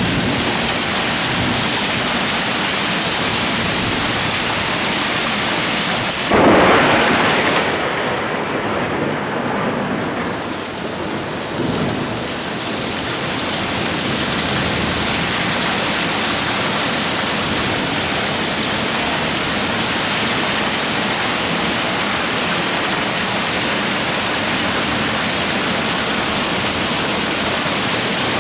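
Heavy rain pouring steadily, with a sudden thunderclap about six seconds in that rumbles away over the next several seconds.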